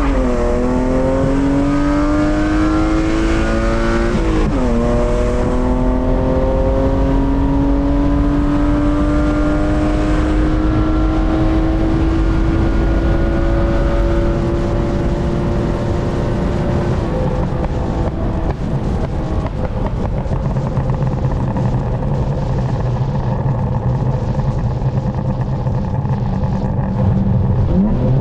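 BMW E36 323i's M52B25 straight-six accelerating under load: revs climb, drop sharply at an upshift about four and a half seconds in, then climb slowly through the next gear for about twelve seconds. The throttle then comes off and the engine runs lower and rougher before revs rise again near the end.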